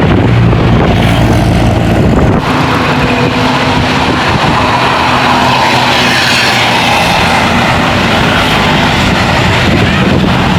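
Large tour bus passing close by: loud, steady engine and road noise, with an abrupt change about two seconds in.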